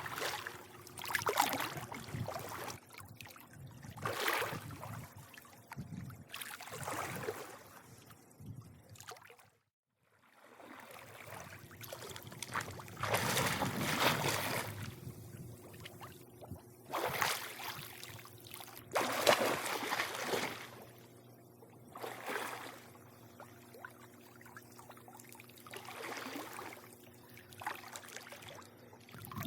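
Swimming-pool water lapping and splashing in irregular surges, over a faint steady hum. The sound cuts out completely for a moment about a third of the way through.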